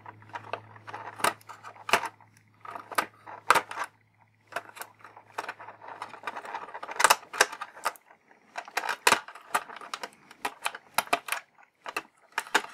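Hobby knife slicing tape on a clear plastic blister tray, the tray crackling and small plastic toy accessories clicking as they are worked loose: a run of irregular sharp clicks and crinkles.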